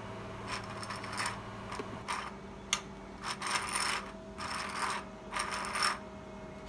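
3D-printed PLA crankshaft, connecting rods and pistons in a model engine block turned by hand: a run of short plastic rattling and rubbing sounds, with one sharp click about midway. A faint steady hum sits underneath.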